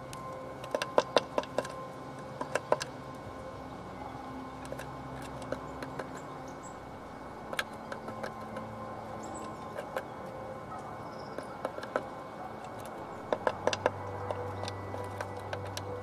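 Tits at the entrance hole of a wooden nest box, tapping and scratching on the wood in short clusters of sharp clicks, twice near the start, a few in the middle and a quick run near the end.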